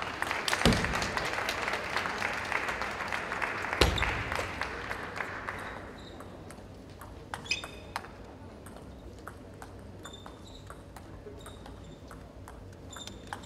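Spectators clapping for about six seconds after a point, then sharp ticks of a table tennis ball on table and bat as play restarts with a serve and a short rally.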